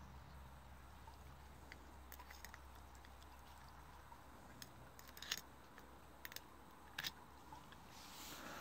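Faint, scattered crisp clicks and crunches of a red fox biting and chewing food off the grass, over a low steady hum.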